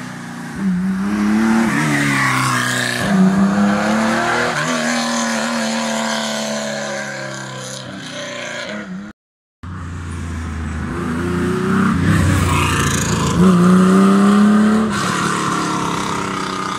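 Historic rally cars at full throttle passing on a special stage: the engine rises in pitch and drops back at each gear change as the car approaches and passes. After a short silence about nine seconds in, another car does the same.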